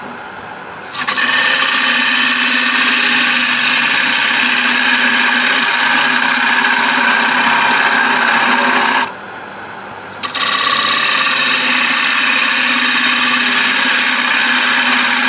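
A gouge cutting the inside of an acacia bowl spinning on a Laguna 1836 wood lathe: a steady hiss in two long passes, with a break of about a second some nine seconds in. The lathe hums quietly under the cut and in the gap.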